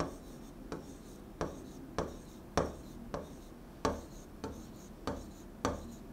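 Stylus tapping and scratching on an interactive display screen while drawing: about nine short, sharp strokes, roughly one every half second or so, fairly faint.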